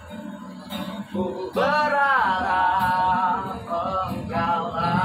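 A busker strumming an acoustic guitar, joined about one and a half seconds in by a man's singing voice, entering loud on a long, high held note that bends in pitch, then carrying on the song over the guitar.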